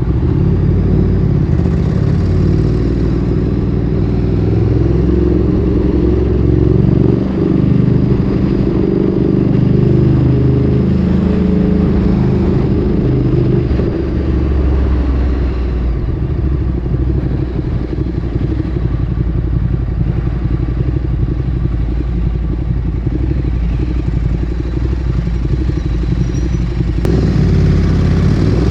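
Ducati Streetfighter 848's V-twin engine through a Termignoni exhaust, ridden with the engine speed shifting up and down. About halfway through it settles into a steadier, lower running, and it picks up and begins to rise again near the end.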